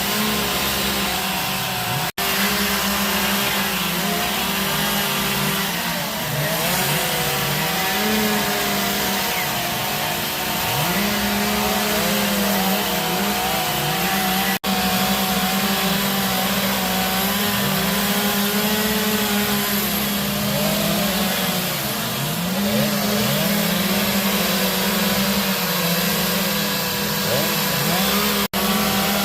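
Chainsaws carving wood, running together at high revs; the engine pitch keeps dipping and climbing back as the throttles are eased and opened again. The sound cuts out for an instant three times.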